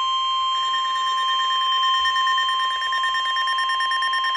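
NOAA Weather Radio 1050 Hz warning alarm tone, one steady high tone announcing that a warning broadcast follows. About half a second in, a second, higher-pitched rapid beeping joins it.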